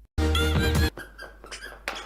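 A brief, loud squeaky music sting or sound effect, under a second long, right after a sudden cut of dead silence; it stops abruptly and quieter sounds follow.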